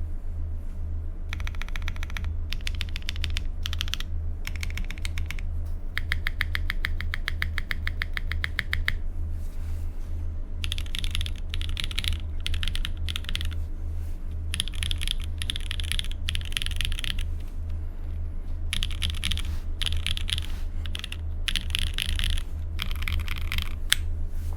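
Typing on a Sangeo65 custom mechanical keyboard with stock, pre-lubed Gateron Raw switches on an aluminium plate, with GMK keycaps. The keystrokes come in bursts, including a fast, evenly spaced run of clicks about 6 to 9 seconds in. A steady low hum runs underneath.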